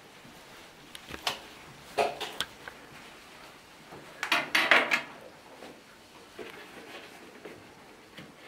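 Scattered knocks and clatters of shoes being handled on a wooden shoe cabinet, with a few single knocks in the first half and the loudest cluster about four to five seconds in.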